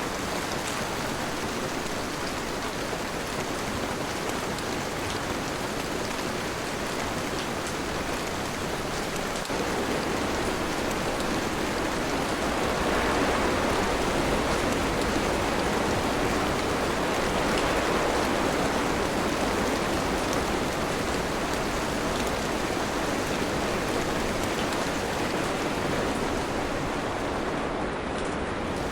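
Steady heavy rain, a dense hiss of falling drops that grows louder about ten seconds in.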